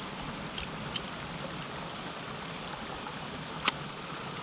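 Creek water running in a steady hiss, with a single sharp click a little over three and a half seconds in.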